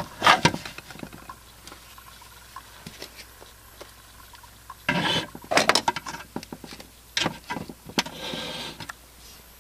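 Handling noise: scattered knocks, taps and rubbing as the camera and toys are moved about, with a short soft hiss about eight seconds in.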